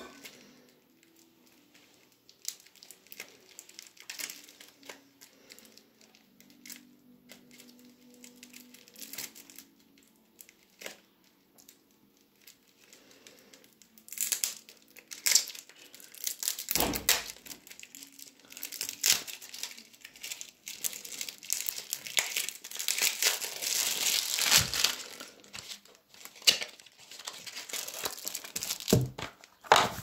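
Plastic film wrapping being crinkled and torn off a tarot card deck: sparse, quiet crackles at first, then loud, continuous crinkling and tearing from about halfway in.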